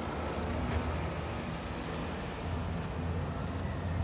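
DAF CF440 tractor unit's Paccar 440 bhp Euro 6 diesel engine idling with a steady low hum.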